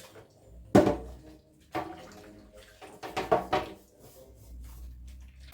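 Kitchenware being handled: a handful of separate clinks and knocks, each ringing briefly, with a cluster of them near the middle.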